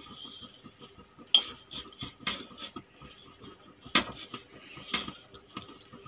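Hand mixing flour in a stainless steel bowl: soft rubbing and scraping with several sharp metallic clinks and knocks against the bowl, about four of them spread through.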